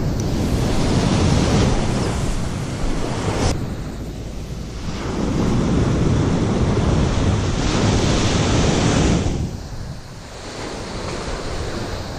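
Ocean surf breaking and washing up a sandy beach, swelling twice and easing off in between, with wind buffeting the microphone.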